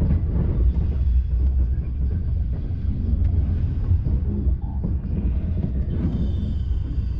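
Steady low rumble of a TGV Duplex high-speed train heard from inside a passenger car as it runs on the rails.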